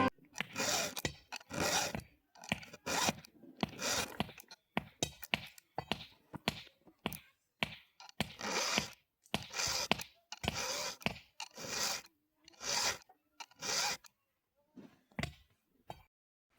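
Rhythmic rasping strokes of a hand tool, back and forth about once a second, each stroke short and scratchy with a pause between. The strokes stop about fourteen seconds in, and one more follows.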